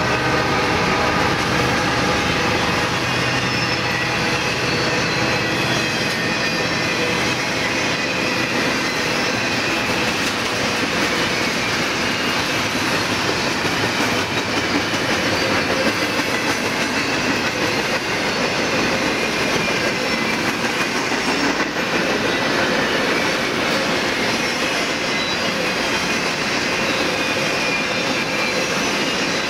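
Intermodal freight train's container and trailer cars rolling steadily past at speed: a continuous noise of steel wheels running on the rails.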